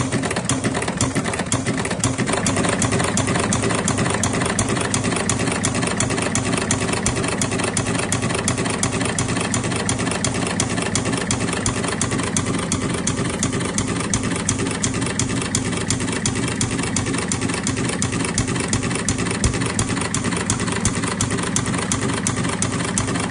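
Engine idling steadily, with a fast, regular ticking running through it.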